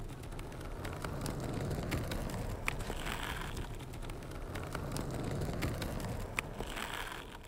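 Small plastic wheels of a toy doll's skateboard rolling across a hard, smooth tabletop: a steady rumble with scattered small clicks.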